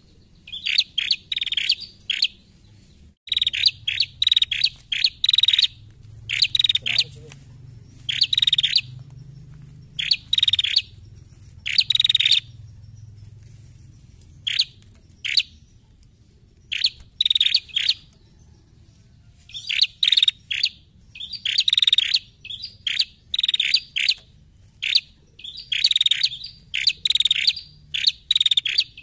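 A female prenjak (prinia) calling. It gives rapid bursts of two to six sharp, high chirps, with short pauses between the bursts.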